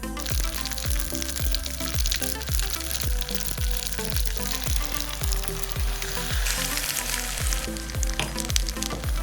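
Food sizzling and frying in a hot pan, a steady crackling hiss that swells briefly near the end. Background electronic music with a steady beat plays under it.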